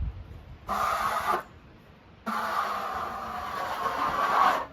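Wood-Mizer LT15 band sawmill running with its blade cutting through red oak: a steady rushing noise with a faint low hum under it. It comes in two stretches that start and stop abruptly, a short one about a second in and a longer one from about two seconds in until near the end.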